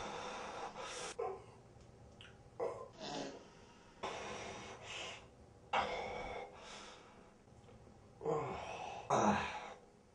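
A person breathing, with about six noisy breaths spaced out, a few of them loud.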